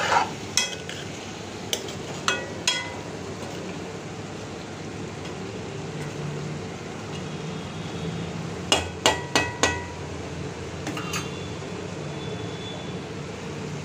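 A metal spoon stirring a vegetable curry in a metal cooking pan, clinking and knocking sharply against the pan's side and rim several times, with a quick run of four knocks about nine seconds in, over a steady background hiss.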